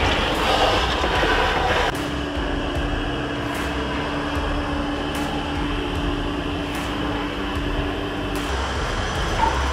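Wet-dry vacuum running steadily, its hose sucking soapy foam and wet grime off a car's bare metal floor pan.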